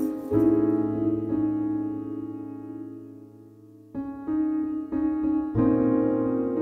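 Background piano music: a held chord slowly fades away, then new chords are struck about four seconds in and again a second and a half later.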